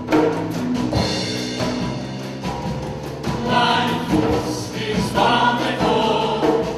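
A choir singing live, with percussion beneath: frequent strikes on a drum kit, cymbals and a hand drum. The voices grow fuller about halfway through.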